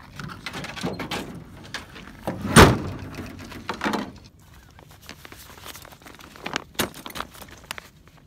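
Pickup truck tailgate being unlatched and lowered, with one loud clunk about two and a half seconds in as it drops open, and smaller knocks and rattles around it. A few sharp clicks follow near the end.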